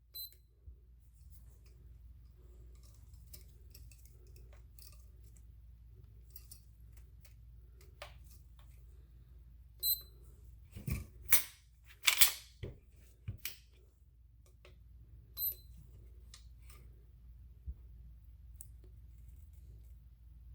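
Polymer 80 Glock-pattern pistol with a Black Yikes 3.0 connector being dry-fired against a trigger pull gauge: sharp clicks of the trigger breaking and the striker releasing, bunched together just past halfway. Three short high electronic beeps, one near the start, one about halfway and one about three-quarters through, mark the gauge's readings.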